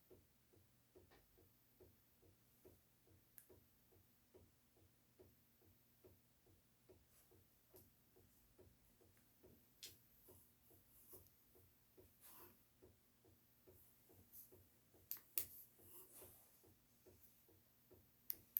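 Near silence with a faint, regular ticking about three times a second. From about halfway on, scattered light clicks and short rustles come in, the loudest a little before the end.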